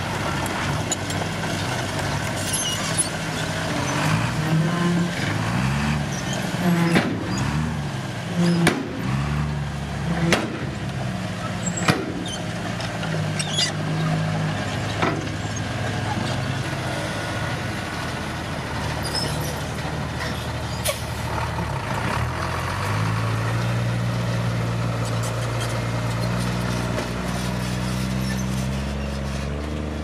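Diesel engines of a dump truck and a small crawler dozer running, revving up and down, with a number of sharp metal clanks through the first half. Near the end a steadier, heavier engine drone takes over as the dozer works.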